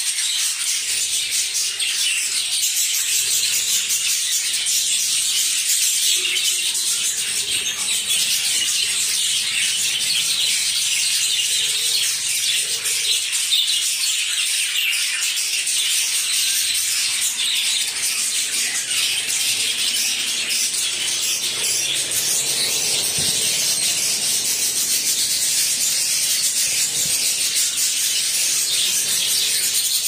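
A flock of budgerigars chattering and chirping without a break, a dense, steady mass of overlapping high-pitched calls.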